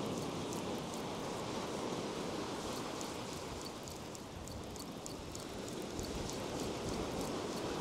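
Ocean surf breaking and washing up a sandy beach in a steady rush, with faint quick high ticks over it.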